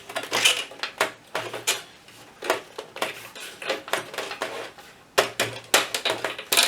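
Irregular metallic clicks, clanks and scraping as the Amiga 1000's sheet-metal case is bent and worked to free the joystick and mouse port section.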